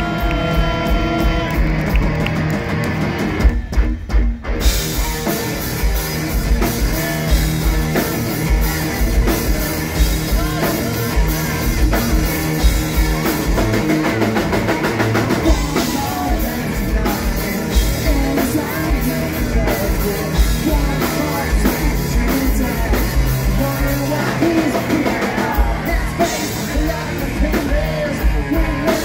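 Loud rock music with singing over a drum kit and guitar, with a brief break about four seconds in.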